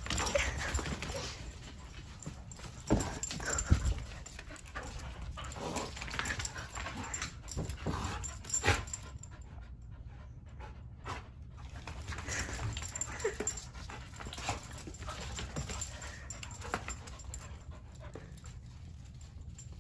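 Two dogs playing together, panting, with a few sharp knocks among the scuffling.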